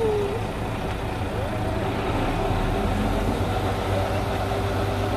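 Heavy crane lorry's diesel engine idling steadily.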